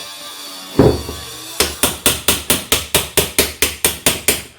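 Hammer striking the washing machine's drum shaft to drive the old bearing off: one hard blow about a second in, then a quick even run of sharp metallic taps, about five a second.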